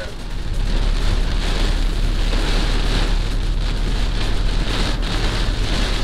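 Heavy rain falling on a car's windshield and roof, heard from inside the moving car, over a steady low rumble.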